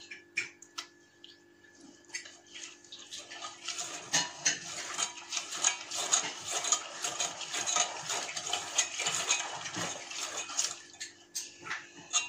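Wire whisk beating thick chocolate cake batter in a stainless steel pot: quick clinks of the wires against the pot and wet scraping. Sparse at first, it becomes a steady, fast run from about four seconds in and thins out near the end.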